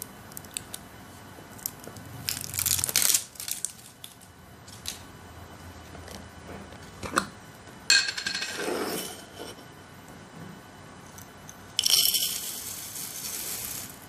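Handling a glass snack jar: a few clicks and clinks of glass and cap, and a rustling tear as the foil seal is pulled off. From about two seconds before the end, dry crunchy roasted snack mix is poured rattling into a bowl.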